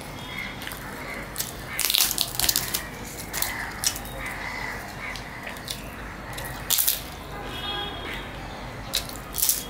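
Crisp fried luchi being torn by hand and eaten, in short crackly bursts a few times. A crow calls faintly in the background.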